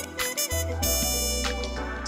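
Instrumental background music with sustained melodic notes over a steady bass.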